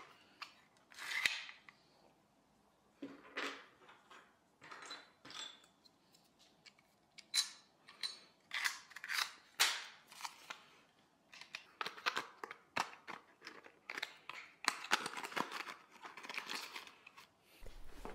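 Manual staple gun being handled and loaded with staples: its magazine slid open and shut, giving scattered sharp clicks, snaps and short scrapes, which come thicker and faster near the end.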